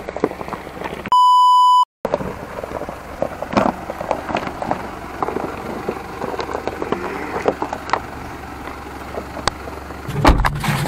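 Tyres of a Mitsubishi Pajero crunching slowly over loose rocks, with many scattered clicks and cracks of stones. About a second in, a steady electronic beep tone cuts in for just under a second and is the loudest sound. Near the end a low, steady engine drone takes over.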